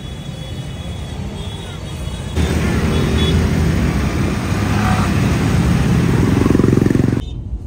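City traffic and road noise heard from a moving car. About two seconds in it steps up suddenly to a louder, steady low rumble of engine and road, which cuts back near the end.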